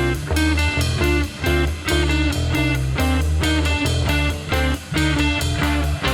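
Rock band playing live and loud: electric guitars over a driving drum beat, in a psychedelic rock jam.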